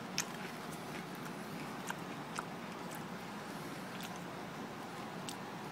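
A hand turning a cardboard box: a few faint, scattered light taps of fingers on cardboard over a steady background hiss.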